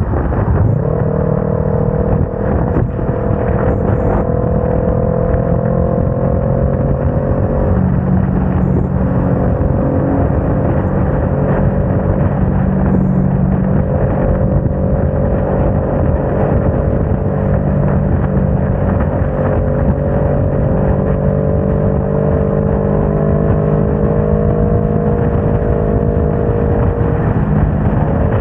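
Motorcycle engine running under load while accelerating along a wet highway: a steady engine note that drops at an upshift from third to fourth gear about eight seconds in, then climbs slowly as speed rises. Throughout, a constant rush of wind and wet-road noise lies under the engine.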